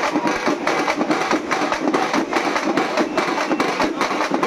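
Festival drum band, large bass drums and snare drums beaten with sticks, playing a fast, dense beat for dancing.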